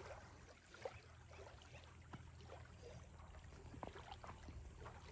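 Near silence: a faint, steady low rumble with a few soft clicks scattered through it.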